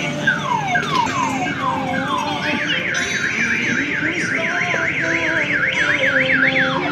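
Electronic siren sound effect. First a run of falling sweeps, about two a second. About two and a half seconds in it switches to a fast rising-and-falling warble, about four cycles a second, and falling sweeps come back right at the end.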